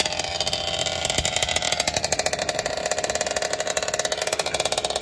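Small two-stroke petrol engine of a 1/5-scale RC off-road car running steadily, its rapid firing pulses giving an even, fast beat.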